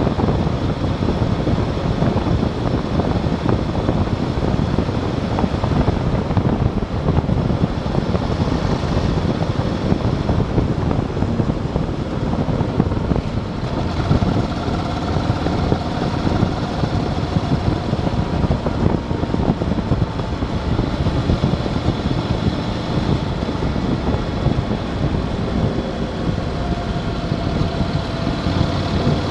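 Motorcycle riding on an open road: a steady rush of wind and road noise with the engine running underneath. Faint engine tones come through more as the bike slows from about 90 to about 65 km/h around halfway through.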